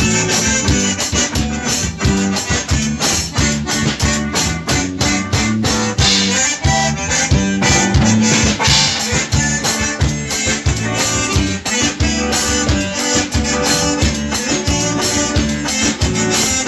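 A band plays an upbeat instrumental intro with a steady beat: accordion lead over guitar, bass and drum kit.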